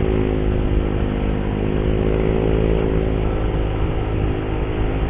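Motorcycle engine running at a fairly steady pace under way, with wind rushing over a helmet-mounted microphone while the visor is open.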